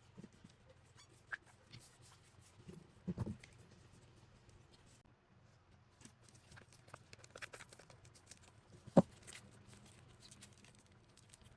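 Quiet, scattered handling sounds of slime and small plastic slime containers being squeezed and opened, with a soft thud about three seconds in and one sharp plastic click about nine seconds in.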